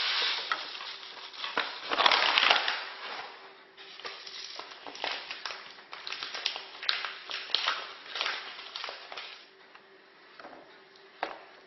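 Paper sugar bag crinkling and rustling as it is handled and opened, loudest about two seconds in, then a run of small crackles that die down near the end.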